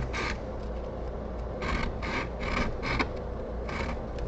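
Steel tool blade being rubbed back and forth on the smooth side of a diamond sharpening plate: short scraping strokes, a pair at the start, a quick run of four at about two or three a second in the middle, and one more near the end.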